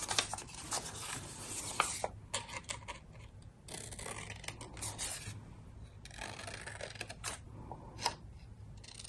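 Book-page paper rustling and rubbing in short stretches as the pieces are handled and positioned, with a few light taps.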